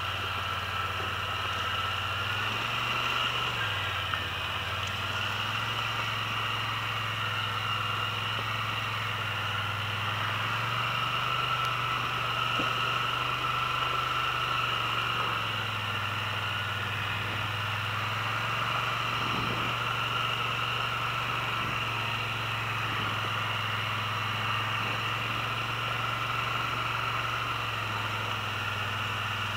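ATV engine running at low trail speed, its note stepping up and down several times as the throttle opens and closes, with a steady high whine over it.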